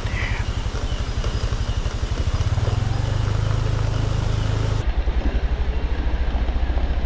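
Motorcycle engine running at low speed with a steady pulsing beat. It pulls harder between about two and five seconds in, then settles back.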